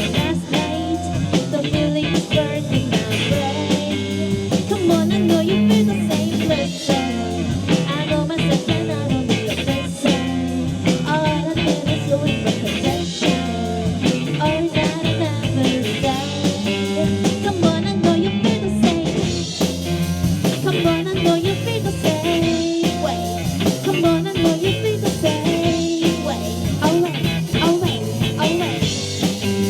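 A rock band playing an instrumental stretch of a song, with guitar and drum kit, at a steady, full level.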